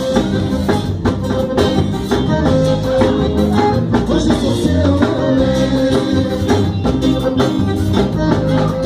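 A band playing the instrumental intro of a sertanejo song, with a steady drum-kit beat under bass and chords.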